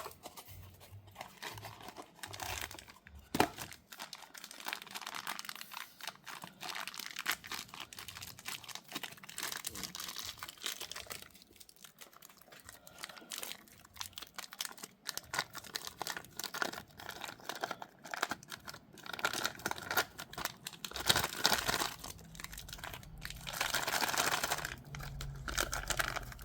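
Hands handling disc brake caliper parts: irregular rustling and crinkling with many small clicks and knocks, louder in stretches near the end.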